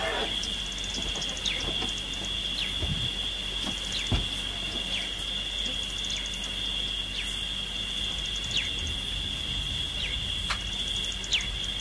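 Insects drone steadily at a high pitch while a bird repeats a short falling whistle roughly once a second, with bursts of fine scratchy trilling now and then. A soft low thump comes a few times, most clearly about four seconds in.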